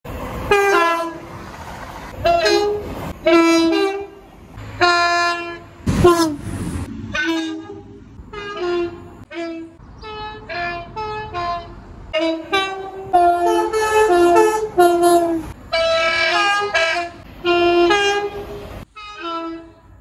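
British Rail Class 185 diesel multiple unit's two-tone horn sounded over and over: short blasts that switch between a higher and a lower note, cut together back to back with abrupt breaks between them. Around the middle, a sharp knock and a low train rumble sit under one of the blasts.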